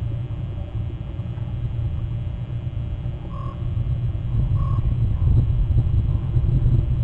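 Steady low rumble picked up by an outdoor webcam microphone, growing somewhat louder in the last couple of seconds, with two short faint tones about three and a half and four and a half seconds in.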